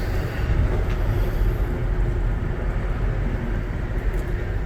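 Steady low rumble of a moving Amtrak Auto Train passenger car, heard from inside the car, with a faint steady hum.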